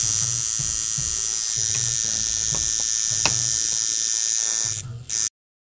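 Coil tattoo machine tuned as a liner, buzzing steadily at 6 volts. It drops out briefly near the end, buzzes again for a moment, then cuts off.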